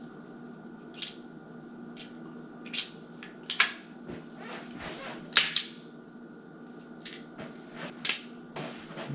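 Loose .38 Special cartridges being thumbed by hand into the cylinder of a Smith & Wesson 642 J-frame revolver: a string of sharp metallic clicks and clacks, the loudest about three and a half and five and a half seconds in. A faint steady hum runs underneath.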